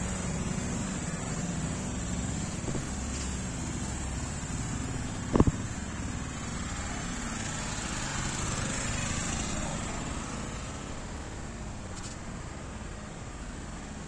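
Steady outdoor background rumble and hiss, easing off a little near the end, with one sharp knock about five seconds in.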